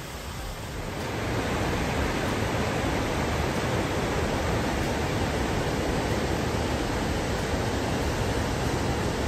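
Steady rush of a bush stream's tumbling water, swelling about a second in and then holding level.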